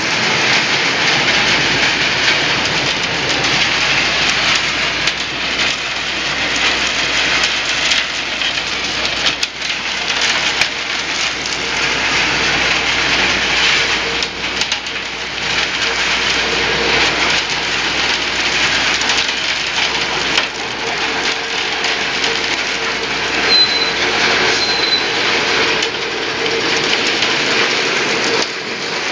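ZSF30 concrete reclaimer running, with a steady, loud rushing and rattling as it washes waste concrete and separates it into sand and gravel. A faint steady hum joins in the second half.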